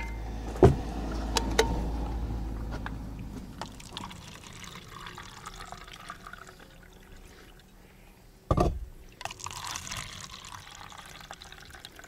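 A drink being poured into a cup, with a sharp click about half a second in and a louder single thump at about eight and a half seconds.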